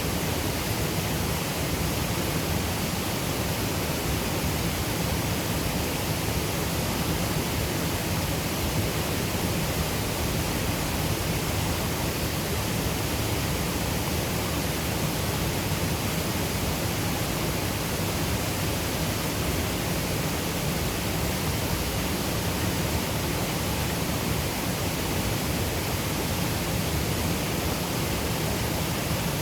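River water pouring over a waterfall: a steady, unbroken rush of falling and tumbling water.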